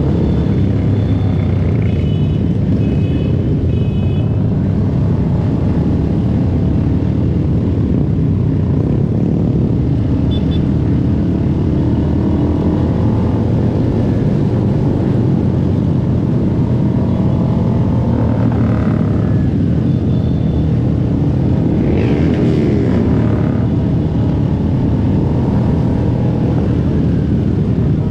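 Small-displacement motorcycles riding in a group, their engines running steadily, with pitch rising and falling several times as they accelerate and shift.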